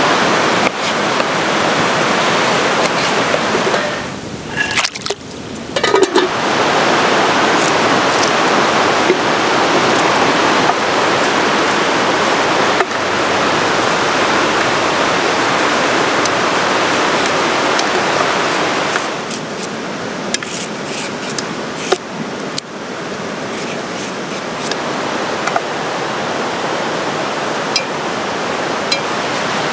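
Steady rushing of a fast mountain river, dipping briefly a few seconds in and somewhat quieter in the second half. Light knife clicks and scrapes from a carrot being peeled sound over it, mostly in the middle and latter part.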